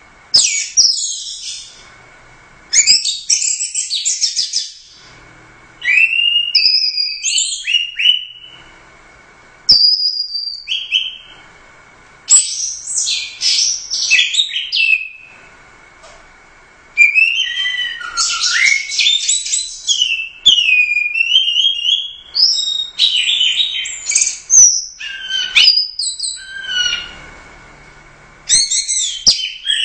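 Orange-headed thrush (anis merah) singing loudly: bursts of rapid, varied whistled phrases and fast trills, separated by pauses of a second or so.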